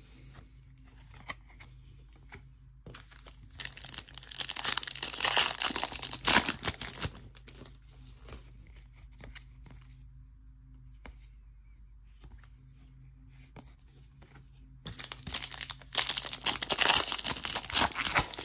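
Foil Panini Mosaic trading-card pack wrapper being torn open and crinkled, a dense rustling that starts about fifteen seconds in. About four seconds in there is an earlier, similar bout of rustling lasting a few seconds, with only faint card handling between the two.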